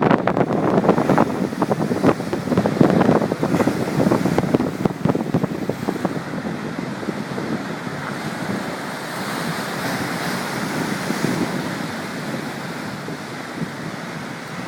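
Strong wind gusts buffeting the microphone over the rush of ocean surf. The buffeting is heavy for the first several seconds, then eases to a steadier rushing.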